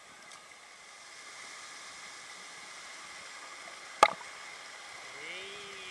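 Steady rush of water from a rock waterfall cascading into a lazy river, with one sharp knock about four seconds in.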